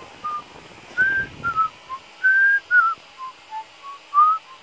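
A whistled theme tune played back from a laptop: a quick melody of about a dozen short, clear notes, some sliding up or down in pitch.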